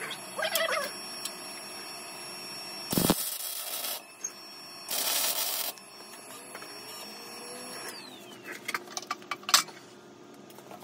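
Two short bursts of electric welding crackle, about a second and then just under a second long, as a tacked steel headlight bar is welded down. A few sharp metallic clicks and knocks of handling follow near the end.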